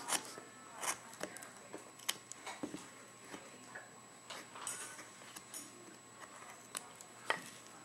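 Carving gouge paring small cuts from a hand-held wood carving: irregular short scrapes and clicks as the edge slices and chips come away.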